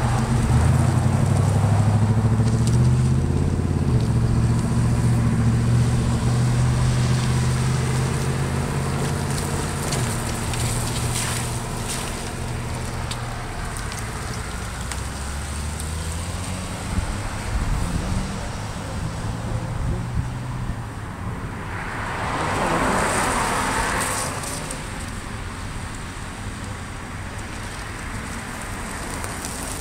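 Road vehicles on wet pavement: a vehicle engine runs with a low, steady hum that is loudest in the first ten seconds and then fades, and about 22 seconds in a car passes with tyre hiss on the wet road.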